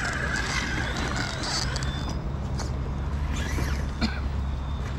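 1/10-scale RC crawler trucks creeping over dirt and rock, their small electric motors and gears giving a faint high whine that rises briefly with the throttle, with scattered small clicks of stones under the tyres. A steady low hum lies under it.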